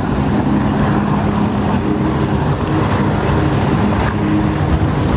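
Personal watercraft engine running loudly and steadily, driving the water jet of a flyboard, its pitch shifting up and down as the throttle changes.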